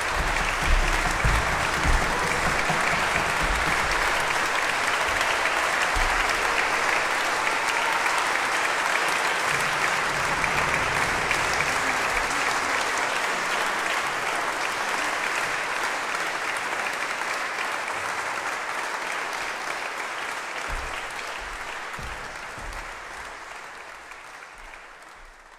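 Audience applauding: dense, steady clapping with a few low thumps in the first couple of seconds, gradually fading out over the last ten seconds.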